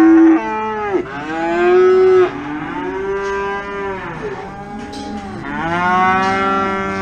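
Several cattle mooing: long, drawn-out calls, some overlapping, the loudest about a second in.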